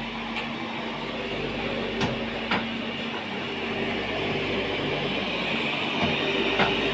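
Bottle shrink-sleeve applicator running: its motor-driven slat-chain conveyor, gripper wheels and hot-air blower make a steady whirring hiss over a low hum, with a few sharp clicks.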